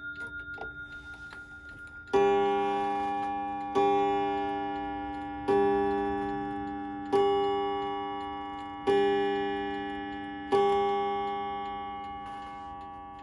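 Waterbury Adamantine mantel clock striking six o'clock: six strokes about 1.7 seconds apart, starting about two seconds in, each ringing out and fading before the next.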